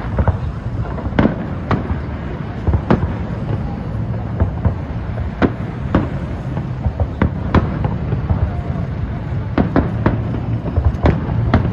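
Public fireworks display going off: a dozen or so sharp bangs at irregular intervals over a steady low rumble.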